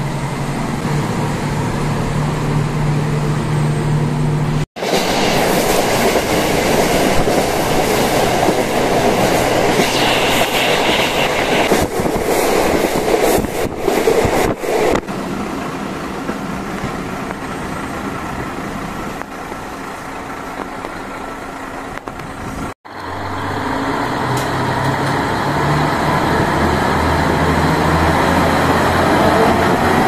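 Diesel railcar heard from inside the car. First its engine hums steadily. After a sudden cut about five seconds in, the train runs along the track with wheel-on-rail noise. After another cut near the end, the engine hum returns and its note rises.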